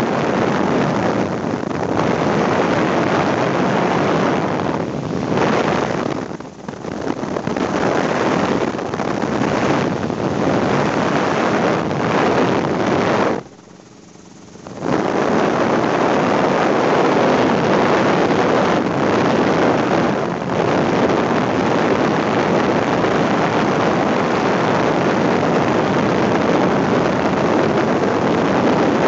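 Helicopter in flight heard from inside the cabin: a steady, loud rush of engine and rotor noise mixed with wind buffeting the microphone. It dips briefly a couple of times and drops away for about a second halfway through.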